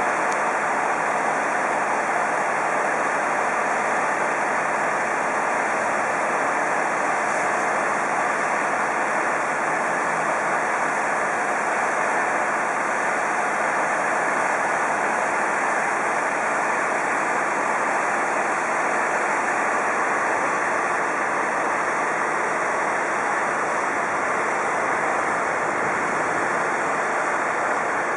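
Fire-engine diesel engines running at idle: a steady, even rushing noise with a faint low hum under it.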